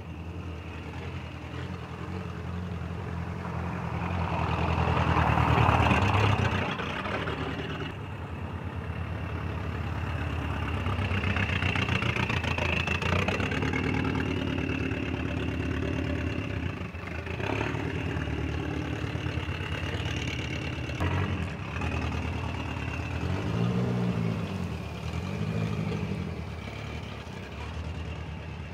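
Big-turbo Dodge Neon SRT-4's turbocharged 2.4-litre four-cylinder running as the car drives around, loudest as it passes about six seconds in, then at low speed with a couple of short revs near the end.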